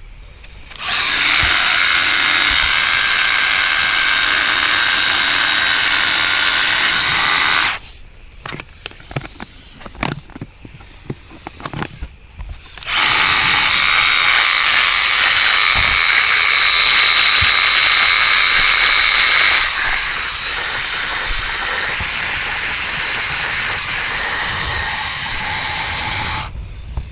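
Cordless pressure washer's electric motor and pump running with the lance removed, sucking washer fluid out of the bottle. It runs in two long stretches with a pause of a few seconds between them, and the second stretch gets quieter partway through.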